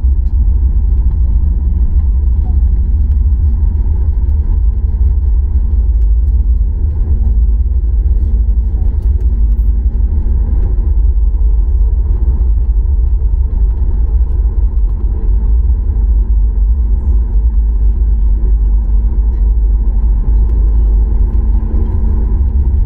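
Boeing 737 MAX 8 cabin noise during the landing rollout: a loud, steady low rumble from the wheels on the runway and the engines, with a steady hum over it.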